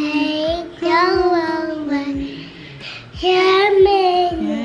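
A toddler singing in long held notes, in phrases of about a second with short breaks between them.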